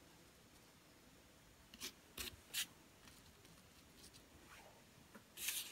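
Faint rustles and scrapes of fingers handling a ribbon flower against a tabletop: three short ones about two seconds in and a longer one near the end.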